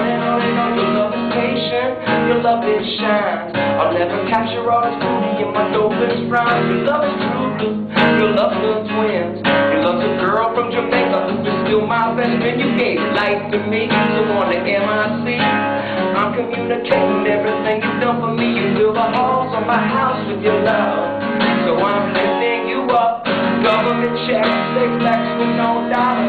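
Acoustic guitar strummed steadily as song accompaniment, with a man's voice singing over it at times.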